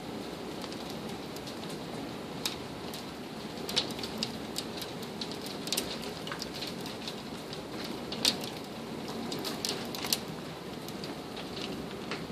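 Hail and rain coming down hard on a wooden deck and against the window glass: a steady hiss with scattered sharp ticks from hailstones striking, a few of them louder.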